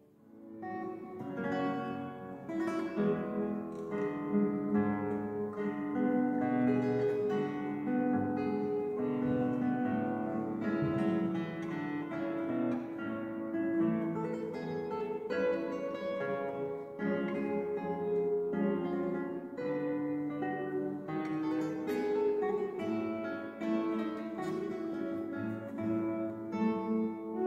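Classical guitar playing a plucked melody over chords, the opening of a fado arrangement, beginning about half a second in after a brief silence.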